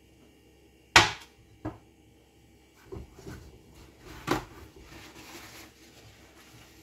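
A plate set down with a sharp clack on the stovetop about a second in, followed by a few lighter knocks and, a little past the middle, another knock and the soft rustle of a paper towel being handled.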